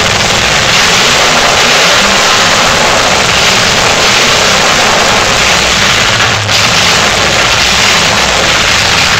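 Ford flathead V8 engine running steadily and loud through open exhaust headers, with no mufflers, on its first test fire in a bare chassis.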